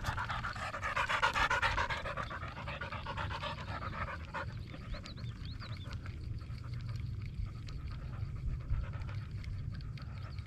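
Rapid panting for about the first four seconds, stopping suddenly, over a low steady rumble.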